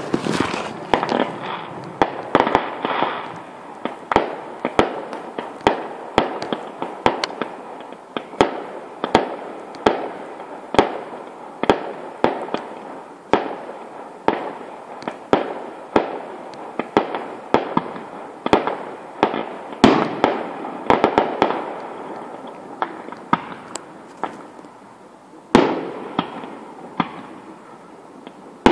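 Fireworks display: a rapid string of sharp bangs, several a second, each with a short echoing tail, over continuous crackling. A brief lull near the end ends with one loud bang.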